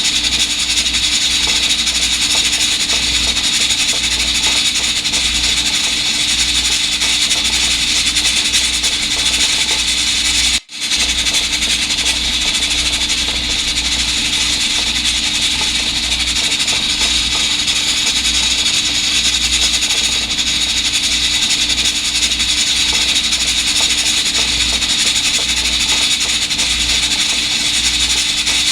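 Continuous rubbing and scrubbing on the body of an electric pressure rice cooker as it is wiped down, a dense steady hiss-like scraping with a faint hum under it. It breaks off for an instant about ten seconds in, then carries on.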